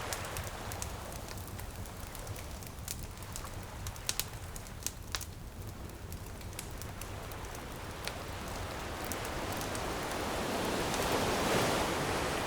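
Bonfire crackling with scattered sharp pops over a low steady surf rumble; an ocean wave swells in and breaks near the end.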